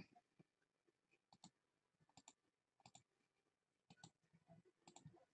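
Faint computer mouse clicks, mostly in quick pairs, about once a second.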